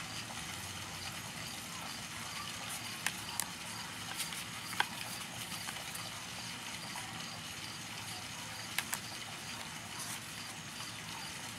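Oracle cards being flipped through by hand: a few short, sharp clicks of card edges over a steady background hiss.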